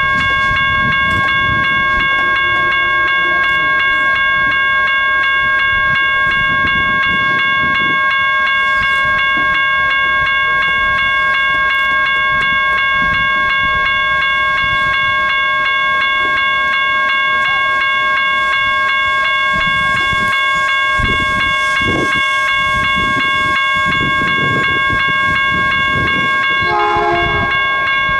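A grade-crossing warning bell rings steadily while a diesel locomotive running light rumbles closer. Near the end the locomotive's horn gives a brief blast.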